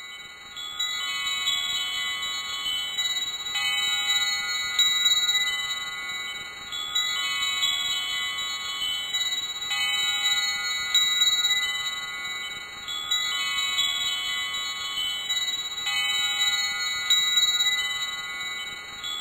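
Chimes ringing in long, overlapping bell-like tones, in a pattern that repeats about every six seconds.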